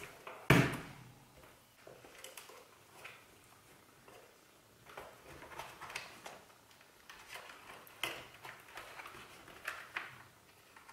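Faint handling noise of intercom wires being tucked into a helmet's lining: scattered rustles and small clicks, with one sharp knock about half a second in.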